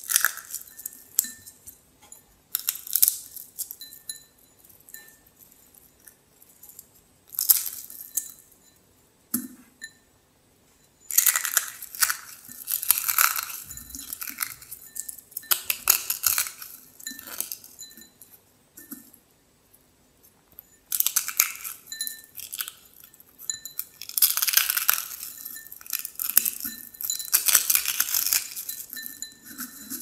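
Dry Hao Hao instant noodles crushed and crumbled between the fingers over a glass bowl: irregular bursts of crisp crackling and snapping, with small bits ticking against the glass, separated by short pauses. The longest, loudest bursts come in the second half.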